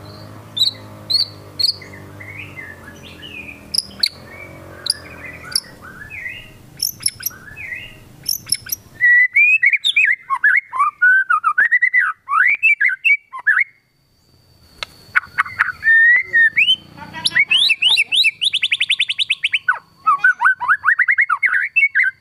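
White-rumped shama (murai batu) singing, its song full of mimicked calls. Short scattered chirps come first, then from about nine seconds a loud run of rapid, varied whistled phrases, with a fast buzzy trill near the end.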